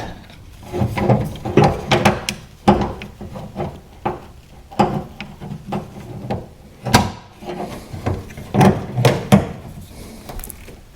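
Irregular clicks, knocks and light rattles of the door-handle linkage rods and handle parts being worked into place inside a car door, with several sharper knocks spread through.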